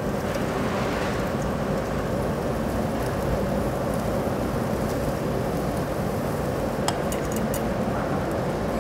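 Eel grilling over charcoal, sizzling steadily as its fat drips onto the hot coals. A few light metal clinks come about seven seconds in.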